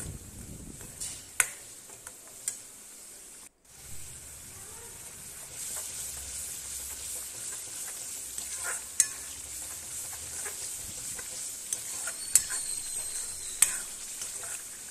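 Masala paste sizzling in oil in a metal kadhai while a metal spatula stirs it, with sharp clinks of the spatula against the pan every few seconds: the spices being cooked down. The sound drops out briefly about three and a half seconds in.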